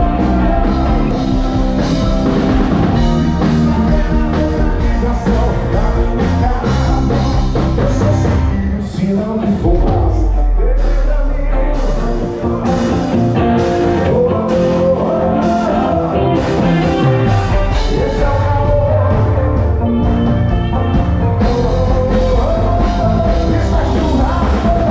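Live band music: a male singer singing into a microphone with acoustic guitar and a full band behind him.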